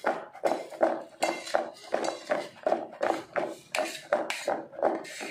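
Plastic box of cut lemon pickle being shaken to toss it, the lemon and chilli pieces knocking and sliding inside about three times a second.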